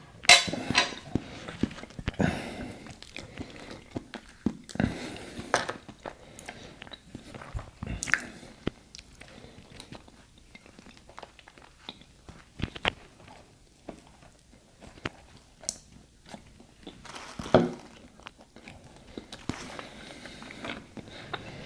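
A person biting into and chewing buttered bread, mouth close to the microphone: soft crunches and moist clicks, with a few louder bites scattered through.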